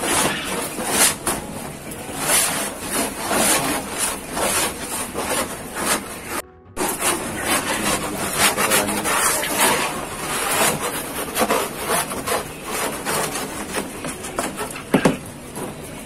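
A wooden slat scraped again and again across a wooden droppings tray from a quail cage, knocking off dried quail droppings: rough, irregular scraping strokes, with a short break about six and a half seconds in.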